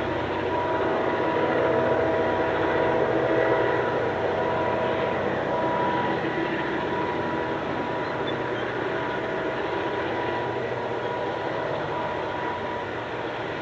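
Diesel locomotives CLF2, 4908 and CLP9 hauling a loaded grain train, approaching with their engines running. A steady high whine sits over the rumble.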